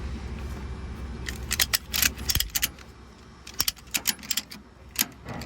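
Irregular sharp metallic clinks and rattles of tie-down hardware (strap hooks and ratchets) being handled, over a low steady rumble that cuts off about two and a half seconds in.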